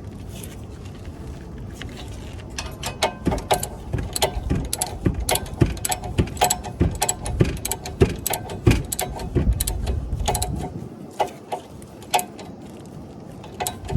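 Irregular metallic clicks and clinks from hand tools and brake caliper parts being worked on, about two or three a second, over a low background rumble that fades near the end.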